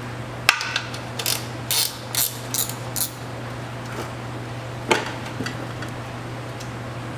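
Hand ratchet wrench clicking through about five quick strokes, backing out a bolt, followed a few seconds later by a single sharp metallic clank.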